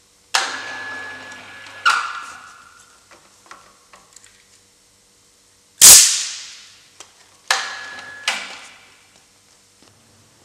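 Bursts of compressed air from the pneumatic control of an Ixtur MAP-40 permanent lifting magnet, which is switched by air pressure. Two hissing puffs with a steady whistle-like tone come near the start. The loudest, a sharp blast with a low thump, comes about six seconds in as the magnet lets go of the steel cylinder. Two more hissing puffs follow near eight seconds.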